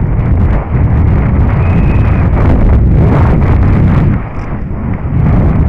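Heavy wind buffeting a helmet-mounted camera's microphone at speed, over the RAM AM.TWO downhill mountain bike's tyres rumbling on a dirt trail, with frequent knocks and rattles as the bike hits bumps. The noise drops briefly about four seconds in, then picks up again.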